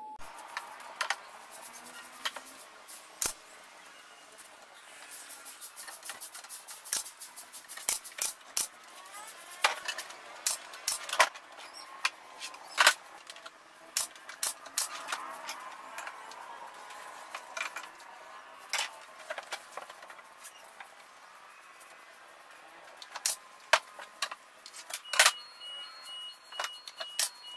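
Irregular sharp clicks and knocks from plywood cabinet panels being handled and fastened, a few of them much louder than the rest.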